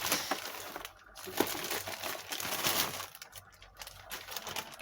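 Packaging crinkling and rustling as a boxed kit is unwrapped by hand, in two longer stretches followed by lighter handling noises.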